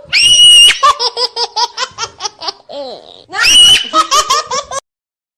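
A young child laughing hard: a high-pitched squeal, then a quick run of 'ha-ha-ha' bursts, a second squeal and more bursts, cut off abruptly near the end.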